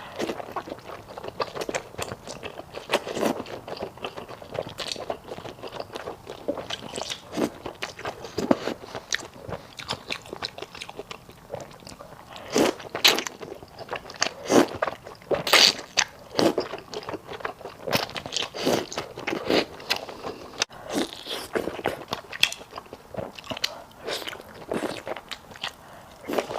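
Close-miked chewing and biting of sticky malatang (spicy hot-pot food), with irregular sharp mouth smacks and clicks.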